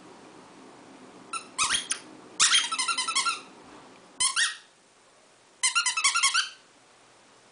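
Squeaker in a plush dog toy squeezed again and again, giving four bursts of quick high squeaks.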